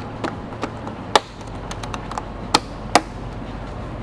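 Scattered sharp clicks and knocks of a Ram Air SS intake plenum being lined up on its slots and set in place. The loudest comes about a second in, and two more come about half a second apart past the halfway point.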